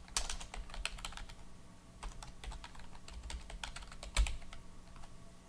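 Typing on a computer keyboard: a quick run of keystrokes, then scattered single keys, with one louder click about four seconds in.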